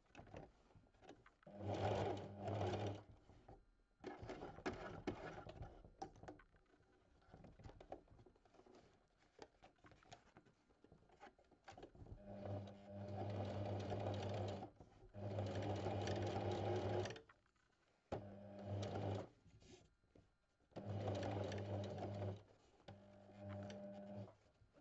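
Sewing machine stitching in several short runs of one to two and a half seconds, stopping and starting with quiet pauses between them; its motor hums steadily while it runs.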